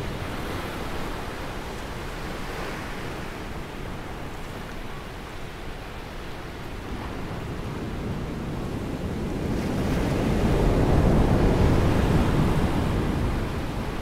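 Ocean surf breaking and washing up a sandy beach: a continuous rush of water that swells louder about ten seconds in as a wave comes ashore, then eases off.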